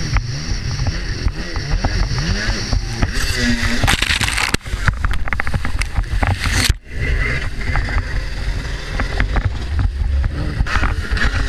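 Freeride jet ski's engine revving up and down under water spray and wind noise, the pitch rising and falling. The sound drops out sharply twice, about four and a half and seven seconds in.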